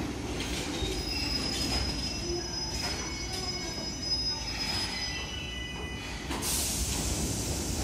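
Enshu Railway 1000-series electric train braking to a stop at a platform. Its brakes squeal in thin high tones over the low rumble of the wheels. A short burst of hiss follows about six seconds in.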